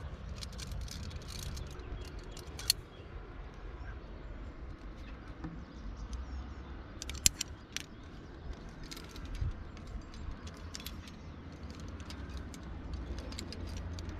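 Metal climbing gear (carabiners and quickdraws) clinking in a few sharp clicks over a steady low rumble of handling and wind on the microphone while climbing.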